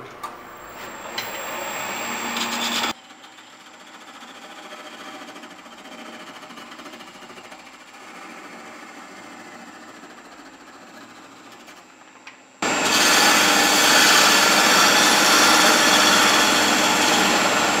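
Wood lathe turning a small end-grain blank while hand tools cut it: a parting tool cutting in at first, then a quieter stretch of light cutting. About 13 seconds in, a gouge starts cutting the end face with a much louder, steady scraping hiss. A thin high whine runs throughout, and the level jumps suddenly, twice.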